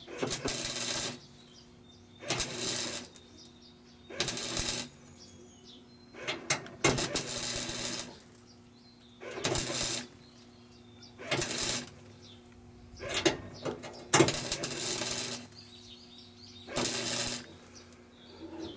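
MIG welder laying short tack or stitch welds on thin car-body sheet steel: about eight crackling bursts of one to two seconds each, coming every couple of seconds, with a steady hum underneath.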